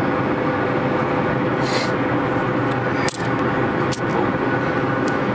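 Steady car-cabin noise with a faint held hum. A rustle comes near two seconds in and two light clicks around three and four seconds in, as flint arrowheads are handled in the hand and lap.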